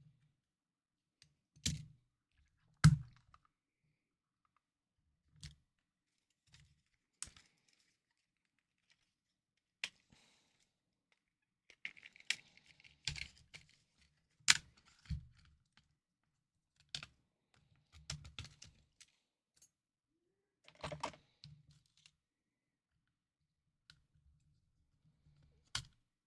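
Scattered clicks and knocks of small plastic console parts and tools being handled and set down on a desk, irregular and a few seconds apart, with a brief rustling cluster in the middle.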